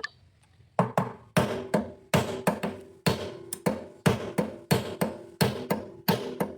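Repeated hammer blows on metal, about three a second and often in pairs, each leaving a short metallic ring. They start about a second in.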